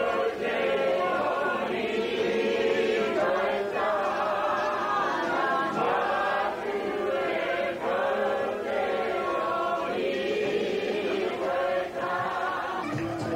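A large group singing together, many voices in sung phrases of a couple of seconds each with short breaths between.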